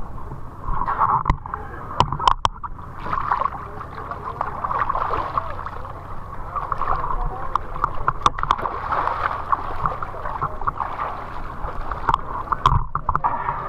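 Water splashing and sloshing against the side of a wooden fishing boat as a swimmer climbs aboard from the sea, heard from a camera at the waterline, with scattered knocks and clicks.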